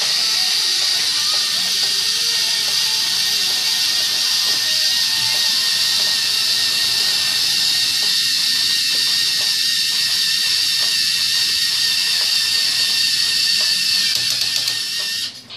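LEGO EV3 robotic arm's electric motors and gear train running steadily, a high whine with hiss, as the arm lifts a can at full extension; it cuts off suddenly near the end.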